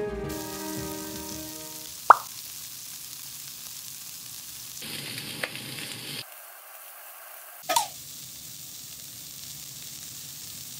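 Bacon-wrapped pieces sizzling steadily in oil in a hot nonstick frying pan. Two sharp clinks sound over the sizzle, one about two seconds in and another a few seconds later with a brief falling ring.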